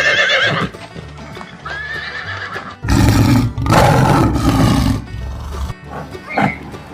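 Horse neighing: a wavering whinny at the start and a second, shorter one about two seconds in, then a loud rough stretch of noise for about two seconds, over background music.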